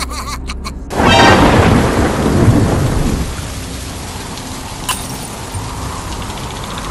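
Thunderstorm: a loud clap of thunder about a second in, rumbling for about two seconds, then steady heavy rain.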